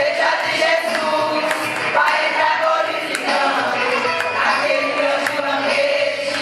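A women's church choir singing together, holding long sung notes.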